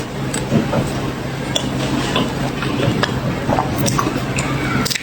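Close-miked chewing of crunchy chocolate cookie bars: continuous wet mouth sounds with scattered small, sharp crunches.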